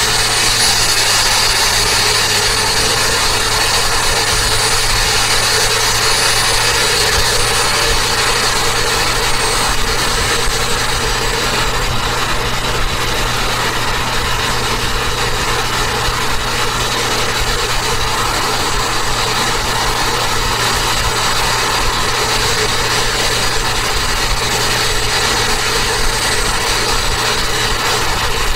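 Turbocharged Toyota Avanza driving at highway speed: a steady mix of engine, tyre and wind noise, with a thin high whistle above it.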